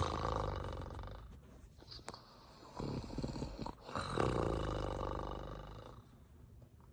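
Exaggerated snoring voiced for a sleeping puppet: three drawn-out, rasping snores, each fading away.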